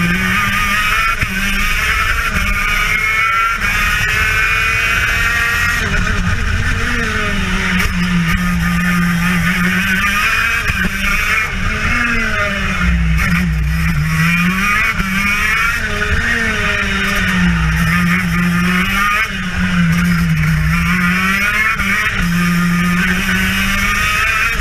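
TM KZ10B 125 cc two-stroke kart engine at racing speed, heard onboard: its pitch drops as the kart slows for each corner and climbs again on the way out, over and over.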